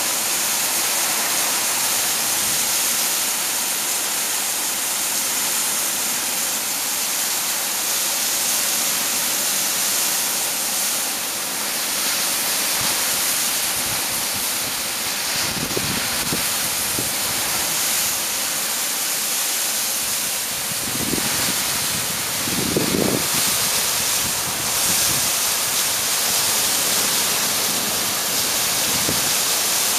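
Torrential rain and strong wind in a microburst thunderstorm, heard through an open screened window: a loud, steady hiss of downpour, with a few short low rumbles in the second half.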